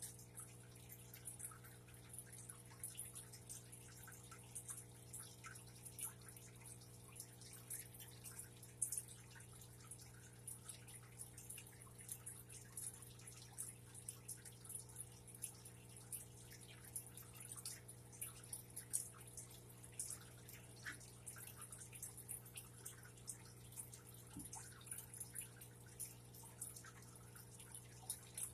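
Faint handling noise from fingers working monofilament fishing line: scattered small, light clicks and ticks over a steady low hum.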